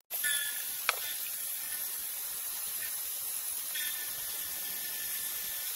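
Milling machine running with an end mill side-cutting a bandsawn aluminium bar held in the vise, squaring the stock. It makes a steady hiss, with a faint whine that comes and goes as the cutter engages. There is one sharp tick about a second in.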